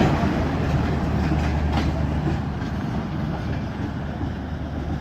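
Passenger train rolling through the station, wheels clicking over rail joints above a steady low drone, the whole sound gradually fading.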